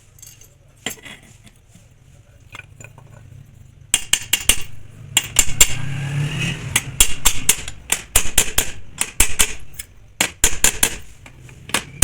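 Metal striking metal: quick, irregular taps and clinks, several a second, starting about four seconds in after a few scattered clicks, typical of hammering and tool work on a washing machine drum during a bearing replacement.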